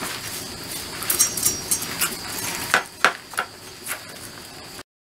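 Knife blade scraping the charred, blackened skin and burnt feather stubs off a singed rooster on a woven bamboo tray: a run of rasping strokes, several sharper ones in the second half, cutting off suddenly near the end.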